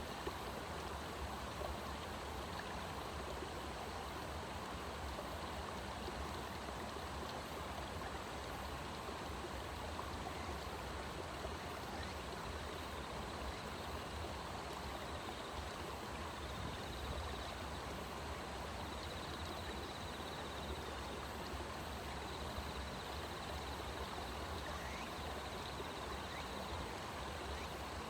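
Steady rushing of flowing water, like a stream running, with a faint high steady tone joining about halfway through.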